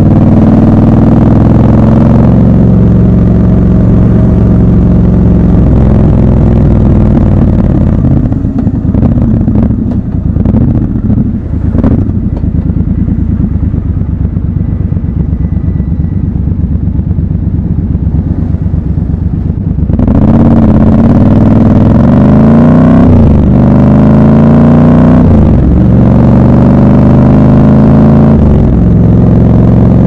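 Triumph Scrambler 1200 XC's 1200 cc parallel-twin engine, heard from the rider's seat. It runs in traffic and rolls off to a stop, then idles for about twelve seconds. About two-thirds of the way in it accelerates away, rising in pitch through two quick upshifts, then settles to a steady cruise.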